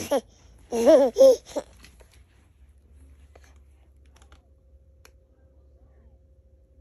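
Toddler giggling and squealing: a short high-pitched burst at the start, then a few louder high, sliding giggles about a second in.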